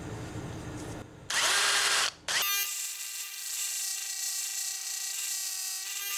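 A cordless drill spins a piece of M6 threaded rod against a running disc sander, grinding its end to a point for a jig pin. This gives a steady motor hum with a high grinding hiss from about two and a half seconds in. Just before it comes a short, louder burst of noise.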